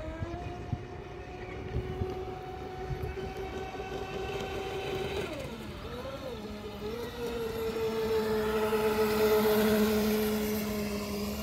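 Small electric motor of a toy boat whining at a steady pitch. About halfway through, the pitch drops and holds lower, and the whine gets louder near the end.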